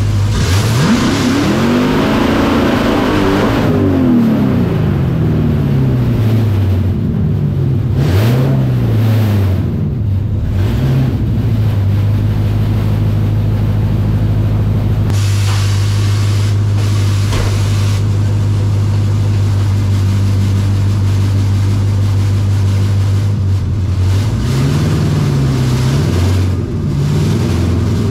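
Supercharged Hellcrate Hemi V8 of a 1955 Plymouth Savoy drag car, heard from inside the cabin: revved up and down several times in the first ten seconds, then idling steadily, with a few short blips of the throttle near the end.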